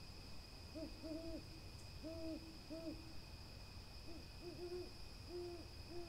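Burrowing owls giving a series of short, low hoots, some in pairs of a quick note and a longer one, over a steady high insect trill.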